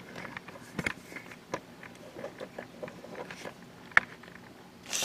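Handling noise as a camera is repositioned over a tabletop: scattered small clicks and taps, with one sharp click about four seconds in. Near the end there is a brief crinkle of the clear plastic bags holding the model kit parts.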